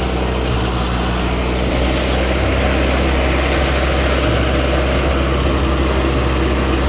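Truck-mounted rice mill running steadily: a loud, constant engine drone under the dense hiss of the milling machinery as palay is fed through.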